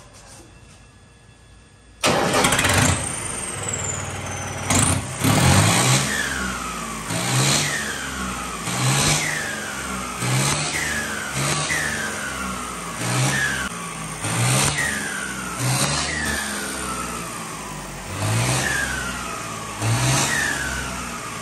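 New Holland 3600 tractor's diesel engine, fitted with a Holset turbocharger, catching about two seconds in. It is then revved in quick blips about every second and a half, each followed by a falling turbo whistle as the turbo spools down.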